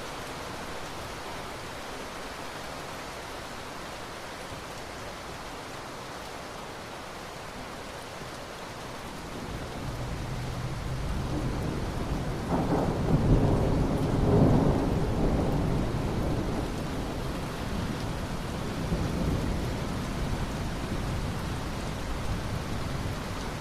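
Steady rain falling, with a roll of thunder that builds about ten seconds in, cracks and peaks loudest a few seconds later, then rumbles on more softly.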